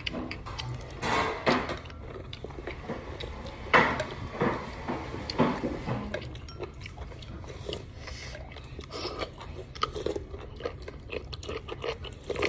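A person chewing and biting food close to the microphone while eating fish noodle soup. Short sharp clicks of chopsticks and a metal spoon against the ceramic bowl come now and then, most densely near the end.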